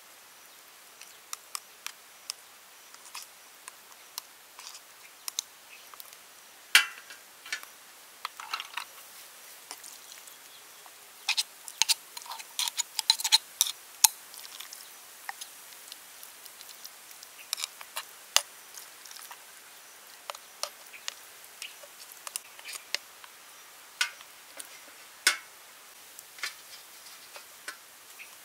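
A spoon scraping and clicking against snail shells and a clay mortar as minced filling is scooped and packed into the shells: scattered light clicks and scrapes, busier for a few seconds near the middle.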